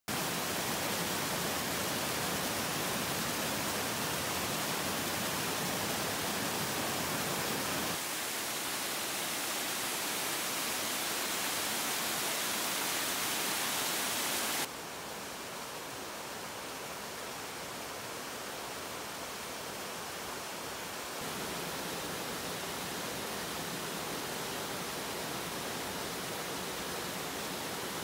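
Small waterfalls and cascading creek water rushing over rocks: a steady, even rush of water that changes abruptly in loudness and brightness three times, about 8, 15 and 21 seconds in, as it switches from one fall to another.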